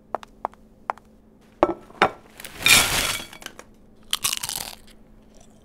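Crisp Doritos tortilla chips being bitten and chewed: a few sharp snaps in the first two seconds, then two loud crunches, one past the middle and one near the end.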